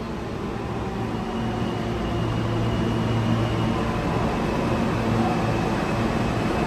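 A New York City subway train moving through the station: a steady rumble with a low, even motor hum, growing gradually louder.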